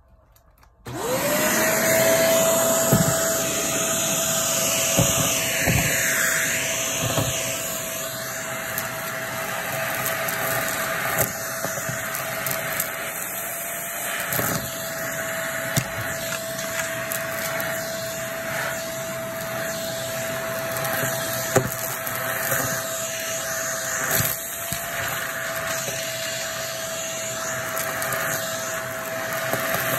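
A Shark vacuum cleaner switching on about a second in, its motor whining up to a steady pitch and running on, while bits of crunchy debris click and crackle as they are sucked up.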